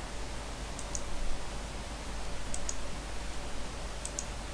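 Clicking at a computer desk: three pairs of quick, sharp clicks, each pair about a second and a half after the last, over a faint steady hiss.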